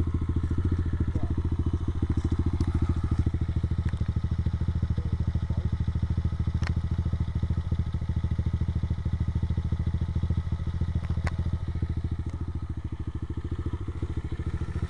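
Orion X-125 pit bike's 125 cc single-cylinder four-stroke engine running steadily at idle, close by, with a couple of light clicks.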